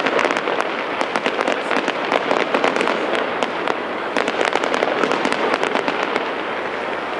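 Fireworks going off in rapid succession: a dense, unbroken string of sharp pops and bangs.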